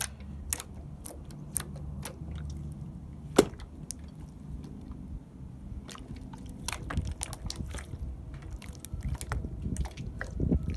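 Soft, fluffy cloud slime being squished and pulled by hand, with scattered sharp little pops and crackles over a low squelching rumble, busier in the second half.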